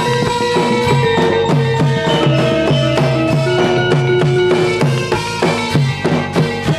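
Folk performance music from a live troupe: drums beating a quick, steady rhythm under a melody of held notes that step from pitch to pitch.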